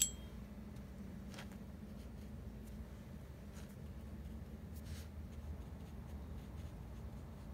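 Faint, soft paintbrush strokes on watercolour paper, a few light strokes a second or two apart, over a low steady hum. A sharp brief click comes at the very start.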